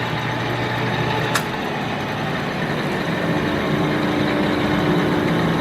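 Victor 1640 manual lathe running steadily as it turns round stock without cutting fluid. A brief high tick comes about a second and a half in, and the pitch of the hum shifts about two seconds in.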